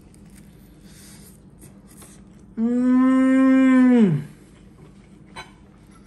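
A man humming a long, steady closed-mouth 'mmm' while chewing food, held about a second and a half midway and dropping in pitch as it ends; faint chewing clicks around it.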